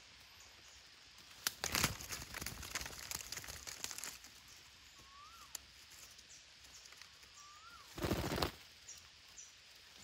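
Parakeets' wings flapping and branches rustling as birds fly in and land, in two bursts, one about a second and a half in and a louder one about eight seconds in. Between them a bird gives two short whistles that rise and then fall.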